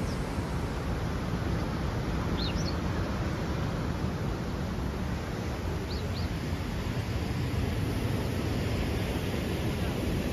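Steady rushing outdoor noise, with a few short bird chirps about two and a half and six seconds in.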